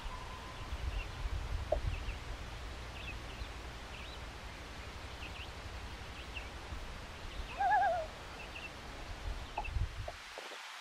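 Common loon giving a short quavering tremolo call, its pitch wavering several times in about half a second, over faint distant chirps of small birds.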